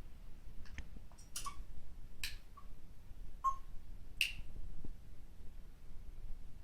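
Pet parrot making about five sharp, irregular clicks in the first few seconds, some followed by a short high chirp.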